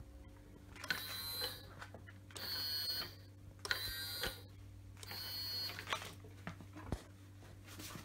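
Electrically driven van deadbolt's small motor whirring in four short runs of about half a second each, each starting with a click, as the bolt is cycled. A few light knocks follow near the end.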